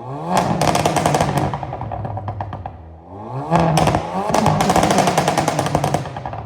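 Mk7 Golf 1.4 TSI four-cylinder turbo engine blipped twice through a dual exhaust with the resonator deleted. Each blip rises briefly in pitch, then falls away in a rapid, dense string of pops and crackles on the overrun, the sound of its pops-and-crackles tune.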